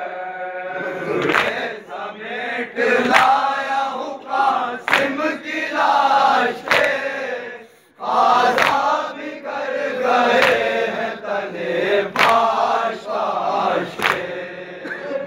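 A large group of men chanting a nauha (lament) in unison, with a sharp collective chest-beat of matam about every two seconds. The chant breaks off briefly a little after halfway, then resumes.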